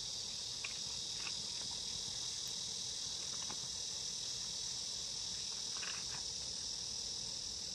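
A steady, high-pitched chorus of night insects.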